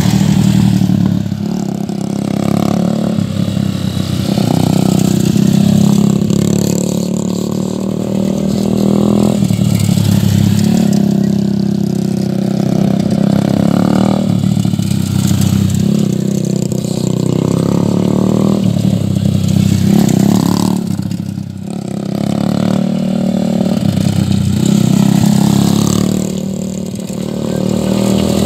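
Motorcycle engines revving up and dropping back over and over as the bikes lean through tight figure-eights around cones. The sound swells and fades every few seconds, with the deepest dips about 21 and 27 seconds in.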